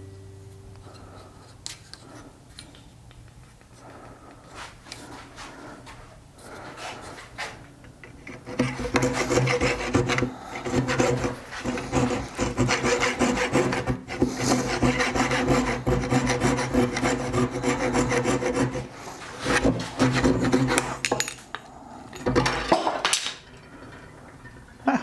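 Wood being worked by hand with a cutting or abrading tool, scraping in long, continuous stretches with a few shorter bursts near the end.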